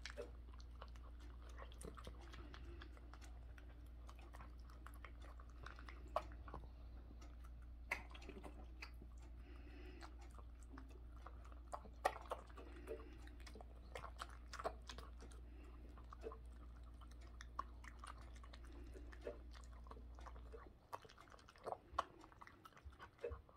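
A small poodle eating from a bowl: faint, irregular crunching and chewing of kibble and chicken mixed with rice. A steady low hum sits beneath it and stops near the end.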